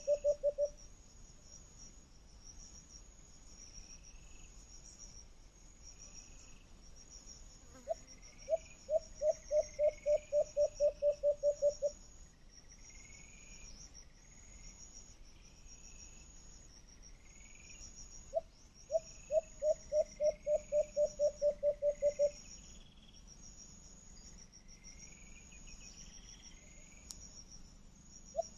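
Insects, cricket-like, trilling steadily in a high pulsing chorus. Three times, near the start, about a third of the way in and about two-thirds in, a louder run of evenly spaced low knocks or calls comes at about four a second for a few seconds.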